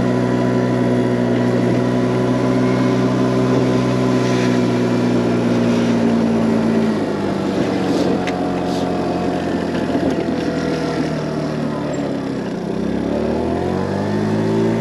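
Wolf Islander scooter's small engine running at cruising speed, then easing off about halfway through and slowing almost to idle, before revving back up near the end. Wind rushes over the helmet-mounted microphone throughout.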